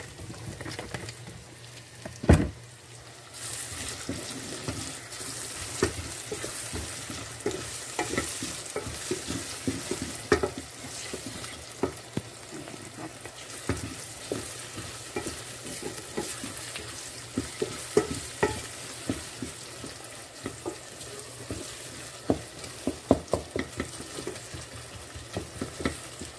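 Chopped onions frying and sizzling in oil in a metal pot, stirred with a wooden spoon that knocks and scrapes against the pot again and again. After a sharp knock about two seconds in, the sizzle turns louder and stays steady.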